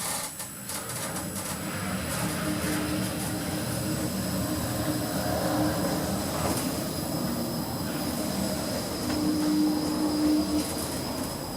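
Otis 2000 passenger lift travelling in its shaft at 2 metres a second: a continuous rumble and rush of car running noise with a faint steady high whine, swelling in the middle and easing off near the end.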